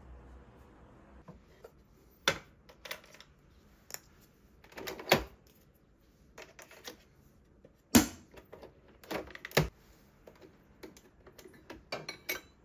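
Kitchen clatter: irregular clicks and light knocks of containers and utensils being handled, with a few louder clacks spread through.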